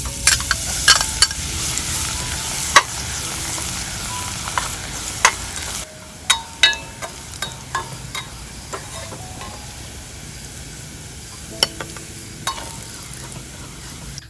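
Food sizzling in a hot pan while a metal utensil stirs it, with repeated sharp clinks and scrapes against the pan. The sizzle turns quieter about six seconds in.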